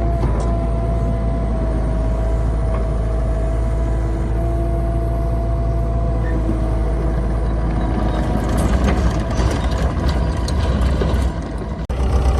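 Gehl CTL70 compact track loader's diesel engine running, with a steady whining tone over the engine note. From about eight seconds in it grows louder and rougher, with rattles and clanks, and dips briefly near the end.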